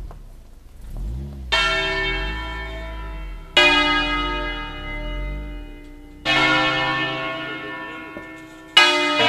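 Swinging bronze church bells from a ring of eight in B-flat, cast by Pruneri in 1909, striking single strokes about every two and a half seconds, four in all, each ringing on as it fades. A low rumble comes before the first stroke, and the last stroke, near the end, is the loudest.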